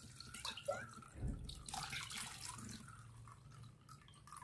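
Liquid poured from a steel jug onto a cloth-wrapped bundle of ground sardai paste in a bowl: faint, irregular splashing and dripping.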